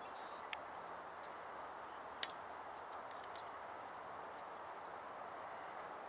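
Steady outdoor background hiss with a few brief, high bird chirps: one just after a sharp click about two seconds in, and a short downward chirp near the end.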